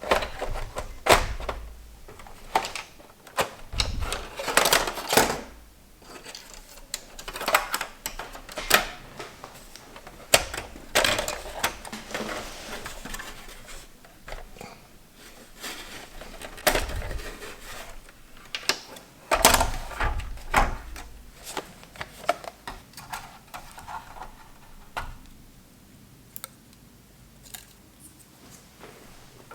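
Irregular clicks, taps and knocks with short stretches of scraping and rustling: small hard plastic and metal parts and tools being handled, as in taking a console apart. The clatter thins out near the end.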